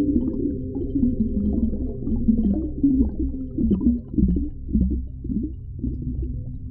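Deep underwater ocean ambience: a low, muffled rumble with a steady hum and gurgling. Short swooping sounds come and go from about three to five and a half seconds in.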